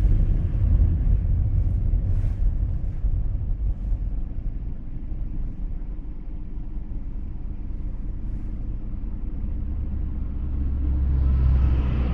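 Low, steady road and engine rumble of a car in traffic, as picked up by a dashcam. It swells briefly near the end.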